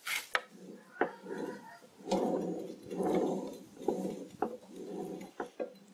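The eccentric disc and drive arm of a dirty vintage power hacksaw being turned over by hand: uneven dry metal scraping and rubbing with a few sharp clicks.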